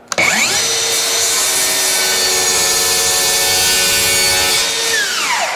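Cordless DeWalt circular saw spinning up and crosscutting an 8-foot 2x4, a loud steady whine while the blade is in the wood, then winding down in pitch near the end.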